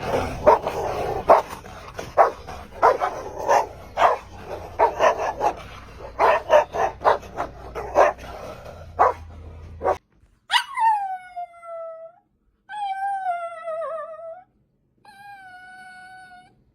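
A dog barks and yips in short, irregular bursts for about ten seconds. After a sudden cut come three long, drawn-out dog howls or whines, each dropping in pitch and then holding.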